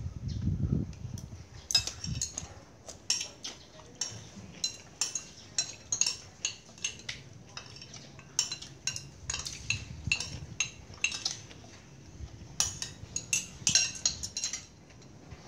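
A metal spoon clinking and scraping on a ceramic plate while eating, in quick irregular runs of sharp clinks with a short lull about two-thirds of the way through.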